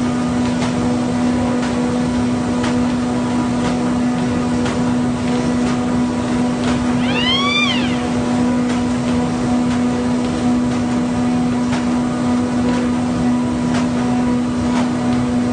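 Paper sheet cutter machine running with a steady hum and a sharp click roughly once a second. A short pitched squeal rises and falls about seven seconds in.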